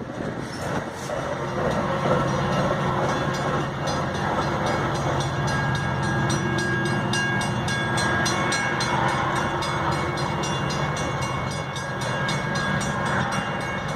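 Metra commuter train rolling through the station: a steady rumble of the train with a regular clicking of wheels over the rail joints that grows quicker from about a third of the way in, and a thin steady whine in the middle.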